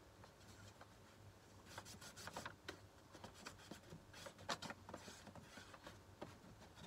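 Faint, irregular rustling and rubbing of a sheet of paper being laid down and pressed by hand against the workpiece, with light ticks among it.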